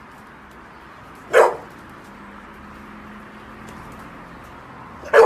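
Pit bull barking: a single short bark about a second and a half in, and another starting right at the end.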